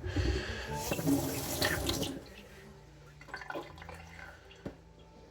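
Swishing of water and steel on a wet 1000-grit Naniwa Professional whetstone for about two seconds, then a few faint light taps.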